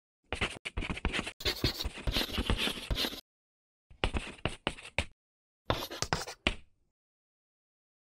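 Chalk scratching and tapping on a chalkboard, like quick handwriting, in three bursts of rapid strokes.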